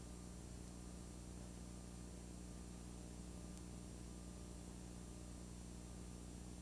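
Steady low electrical hum with faint hiss from a blank stretch of videotape after the recording has ended, with one faint tick about three and a half seconds in.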